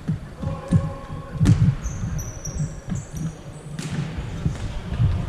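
Futsal ball being kicked and bouncing on a hall floor: an irregular run of dull thuds, with a few short high squeaks in the middle.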